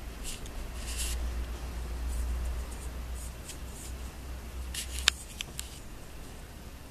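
Small handling noises of a replacement bumper gastrostomy tube and stylet being worked into the stoma: light rustling and little clicks, with one sharp click about five seconds in. A low rumble of handling runs under the first five seconds.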